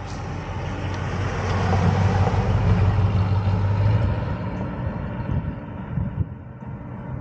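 1963½ Ford Galaxie 500XL's V8 engine and tyres as the car drives up and passes close by, growing louder to a peak about two to four seconds in, then fading as it pulls away.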